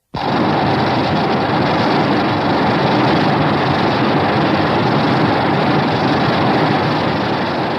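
Showa Godzilla film sound effect: a loud, steady rushing and rumbling noise that starts abruptly and holds without a clear pitch.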